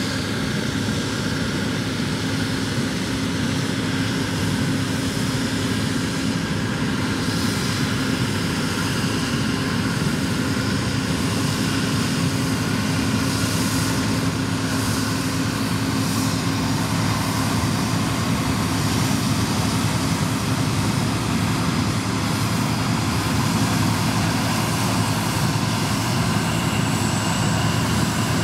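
Steady drone of a John Deere 9650 STS combine harvesting corn alongside a John Deere tractor pulling a grain cart, the combine unloading into the cart on the go. It is a steady engine and machinery hum that grows slightly louder toward the end.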